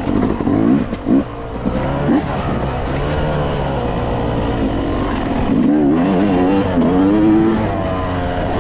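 Yamaha YZ250X two-stroke dirt bike engine under way, revving with the throttle: quick blips up and down in the first couple of seconds, then a steadier pitch that rises and falls gently.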